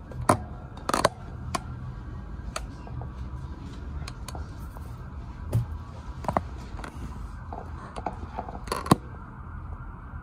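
Scattered light clicks and taps of handling, about a dozen of them, the sharpest near the end, over a low steady hum.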